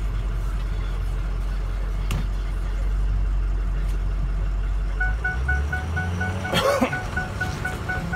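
The 6.0 Power Stroke V8 diesel of a 2006 Ford F550, heard from inside the cab while driving, runs with a steady low rumble that changes pitch about five seconds in. A regular, evenly repeating high tone starts at that point, and there is one brief loud noise about a second and a half later.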